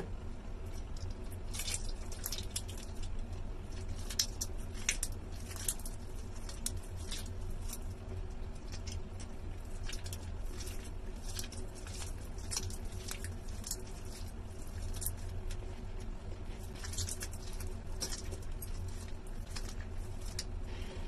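Wet, water-soaked soap being squeezed and crumbled by hands, giving many short, irregular crackling squishes. A steady low hum runs underneath.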